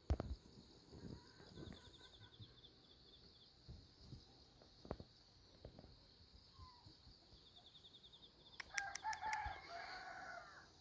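A rooster crows once near the end, a single call about two seconds long, with a few sharp clicks just before it.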